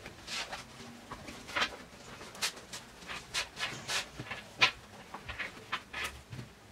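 Hands folding and smoothing a padded fabric changing mat on a table: a run of short, irregular rustles and brushing swishes of cloth.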